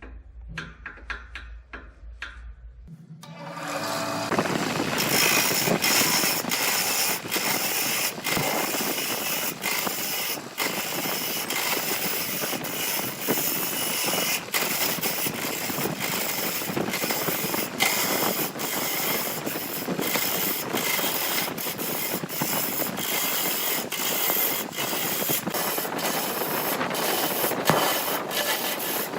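Wood lathe running with a tool cutting and rubbing the wood: a dense rough noise full of rapid sharp clicks, starting about three seconds in after a few light ticks.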